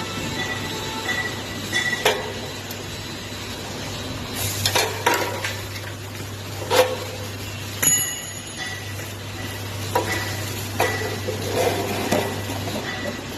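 Metal clinking and knocking: about eight scattered sharp strikes, several in a loose cluster near the middle and more near the end, over a steady low hum.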